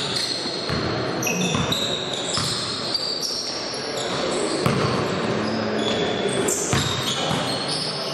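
Basketball game play: sneakers squeaking on the court floor in many short, high squeaks, a ball bouncing, and players' voices.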